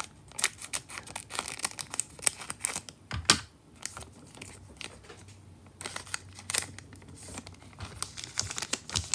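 A foil Pokémon booster pack being snipped open with scissors and then crinkled as the wrapper is pulled apart, giving irregular sharp crackles. The loudest crackle comes a little over three seconds in.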